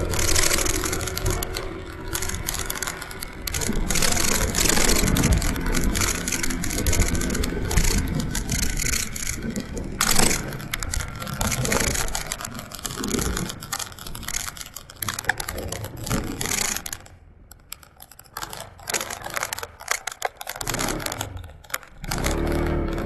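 Motorcycle on the move: wind buffeting the microphone over engine and road noise. It dies down for a few seconds about three-quarters of the way through, then picks up again.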